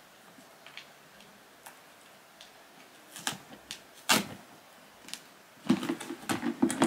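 Hard plastic parts of a Tommee Tippee electric baby-bottle sterilizer clicking and knocking as they are handled and opened: a few separate clicks, then a quick clatter of knocks near the end.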